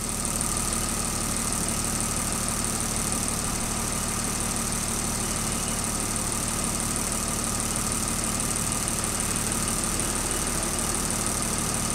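BMW 5 Series engine idling steadily at about 750 rpm on LPG, with the clicking of its Tartarini EVO 08 gas injectors, while the gas system's control unit calibrates the new injectors at idle.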